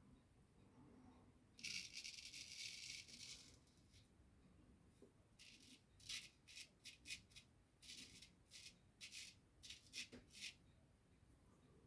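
A razor scraping through lathered stubble in short, crisp strokes: one longer stretch of scraping about two seconds in, then a quick run of separate strokes in the middle and latter part.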